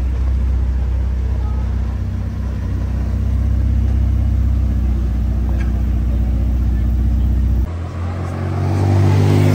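Ferrari 488 Pista's twin-turbo V8 running at low revs as the car rolls slowly away, a steady low drone. After a cut near the end, another car's engine revs up, its pitch rising.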